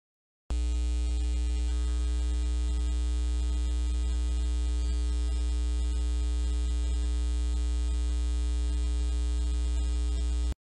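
Steady electrical mains hum: a deep drone with many fainter steady tones above it and no other activity. It starts abruptly about half a second in and cuts off suddenly near the end.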